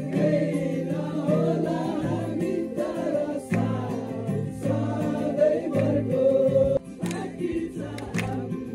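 A group of male voices singing together, accompanied by a strummed acoustic guitar playing changing chords.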